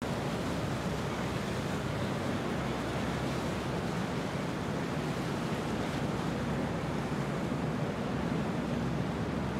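Steady rush of water from boats moving on a river, with a low engine hum underneath.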